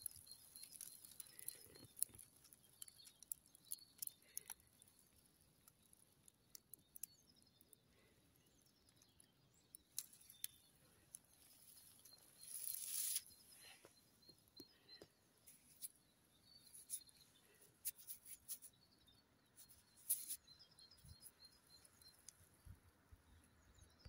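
Near silence outdoors: faint distant birds chirping over a light high hiss, with scattered small clicks and a brief rush of noise a little past halfway.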